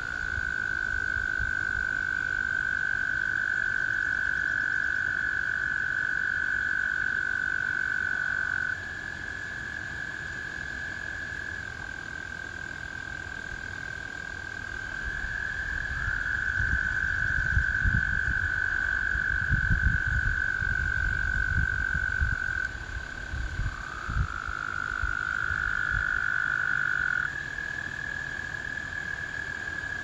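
A chorus of American toads trilling: long, steady, high musical trills, each held for several seconds, from two or three toads at slightly different pitches that overlap and take over from one another. An irregular low rumble comes and goes beneath them, strongest in the middle of the stretch.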